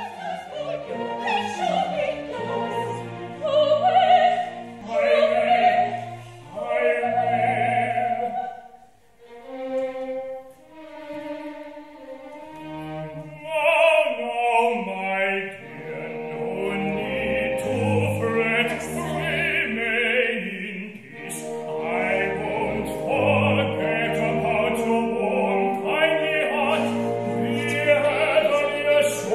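Opera singing with a small orchestra accompanying, with a quieter passage about nine seconds in.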